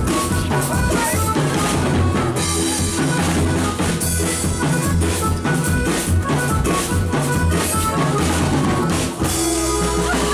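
Live cumbia band playing through a PA: drum kit with bass drum, snare and rimshots keeping a steady beat over bass and keyboard. About nine seconds in the drumming stops, leaving a held bass note and chord.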